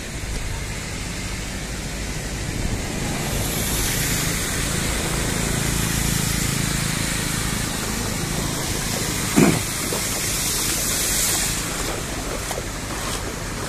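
Fast-flowing floodwater rushing steadily, with wind on the microphone. About nine and a half seconds in comes a brief rising pitched sound, the loudest moment.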